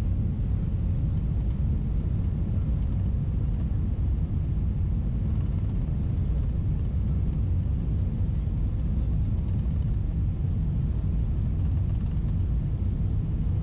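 Steady low cabin rumble inside a Boeing 777-300ER airliner in flight: engine and airflow noise heard from a window seat, even and unchanging.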